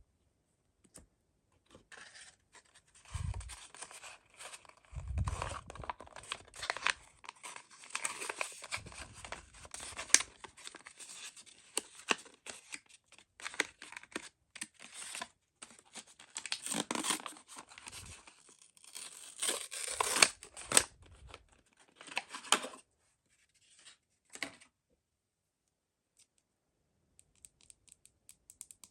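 Mystery-toy packaging being torn open and handled: irregular tearing and crinkling with sharp ticks, then a couple of light clicks near the end.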